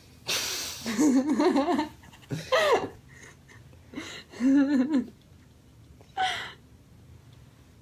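Two people laughing together in four short bursts, with breathy gasps and wavering voiced giggles and quiet pauses between.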